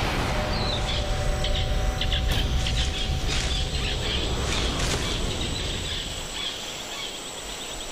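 Tropical rainforest ambience: birds calling in short chirps and insects trilling, over a low rumble that fades about six seconds in.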